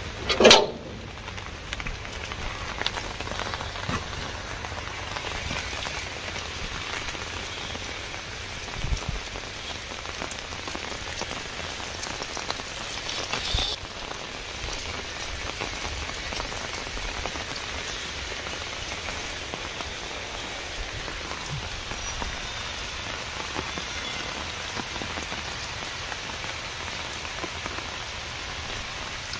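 Heavy rain falling steadily on standing floodwater and wet ground. About half a second in, a loud clank from the sheet-metal gate as it is opened.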